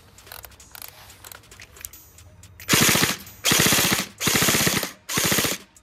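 Umarex HK416 electric airsoft gun firing four short full-auto bursts, each about half a second long, starting nearly three seconds in. Each burst is a rapid, even run of shots from the motor-driven gearbox. The gun is on an RC battery and responds quickly, and it overspins, firing a few extra rounds after the trigger is released because it has no active brake.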